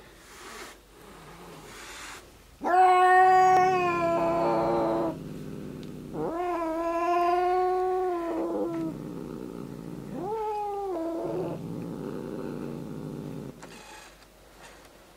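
A cat giving three long, drawn-out yowls, the first the loudest and the last the shortest, with low growling between and after them: a threat yowl from a cat cornered by another cat.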